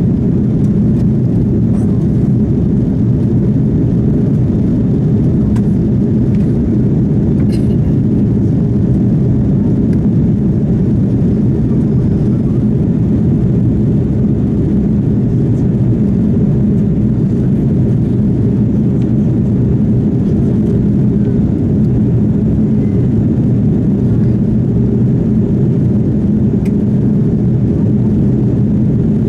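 Airbus A330-300 cabin noise in flight: a steady, even roar of the jet engines and airflow heard from inside the passenger cabin by the wing.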